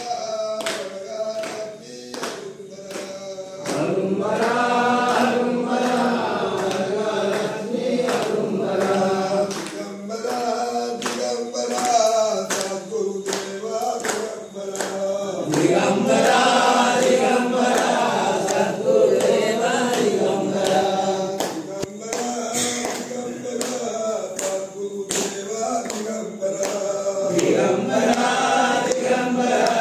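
A group of men chanting devotional verses together, several voices holding the same line, over a steady sharp beat about twice a second.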